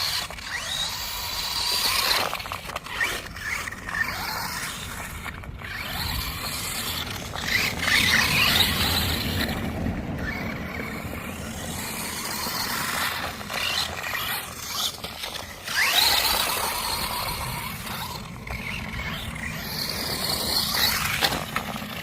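Electric RC truck running hard: its motor and drivetrain whine rises and falls in pitch as it speeds up and slows down several times, with tyres scrabbling over rough ground.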